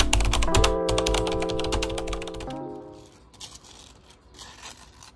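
Typing sound effect, a rapid run of key clicks, over a held music chord with a bass note. The clicks thin out after about a second and a half and the music fades away by about three seconds in, leaving only faint background.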